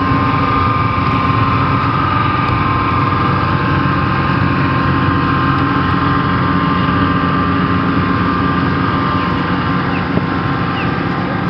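Towboat's diesel engines running steadily as it pushes a crane barge past at close range: a loud, even drone with a constant higher whine on top.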